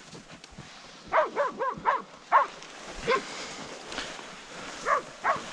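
Pig-hunting dogs barking in quick runs: about five barks a second or so in, one more shortly after, and two more near the end.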